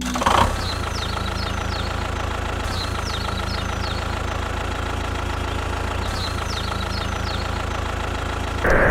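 Engine idling steadily with an even, knocking beat, in the manner of a small tractor engine. Short groups of high chirps come back about every three seconds, and near the end a louder hiss cuts in suddenly.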